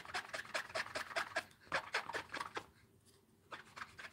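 A Simply Shammy stamp-cleaning cloth rubbed quickly back and forth over clear stamps on an acrylic block, wiping the ink off. The swishing strokes come about six a second, stop briefly about three seconds in, then start again.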